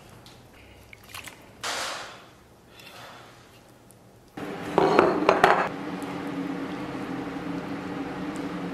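A metal spatula and food scraping and clinking on a stainless-steel plate as food is served, with a few light clicks. About four seconds in a steady hum comes up and runs on.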